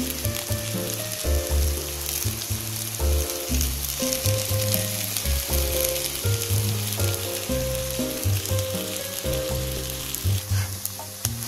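Noodle-and-vegetable patties shallow-frying in hot oil in a pan: a steady sizzle with fine crackling pops. Background music with held notes and a bass line plays underneath.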